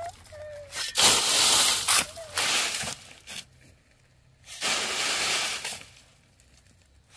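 Sand being sifted: shovelfuls of sand thrown against a leaning mesh screen, each a rushing hiss of grit pouring through, three times.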